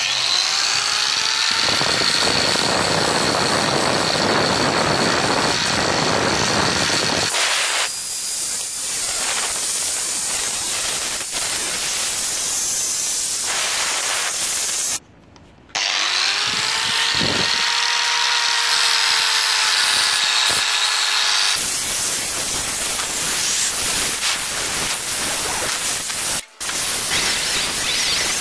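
Angle grinder spinning up with a rising whine and grinding rust off a steel hatchet head, a steady whine over the rasp of the abrasive disc on the metal. The sound drops out briefly about halfway through, then the grinder spins up again and keeps grinding.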